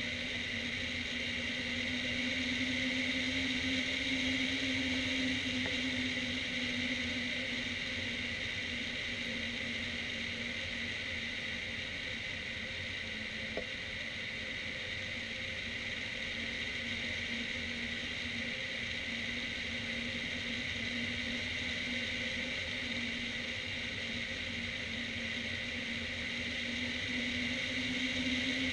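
Steady rush of airflow over a hang glider's wing-mounted camera in flight, with a constant hum running through it. A single faint tick sounds about halfway through.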